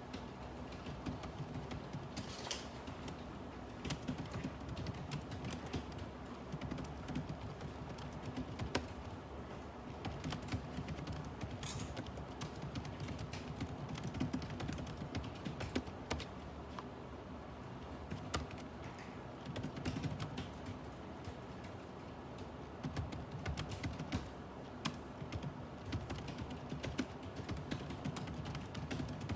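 Typing on a computer keyboard in irregular, unhurried runs of key clicks, over a steady low hum.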